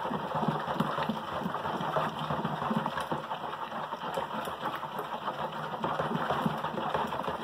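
Long spatula stirring a watery liquid soap mixture in a plastic bowl: a fast, steady run of sloshes and scrapes against the bowl.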